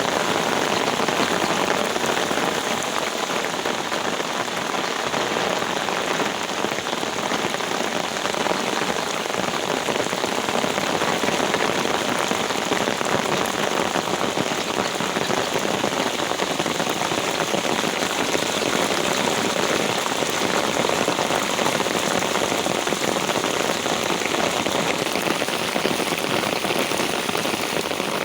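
Heavy rain falling steadily, a dense even hiss of drops with no letup.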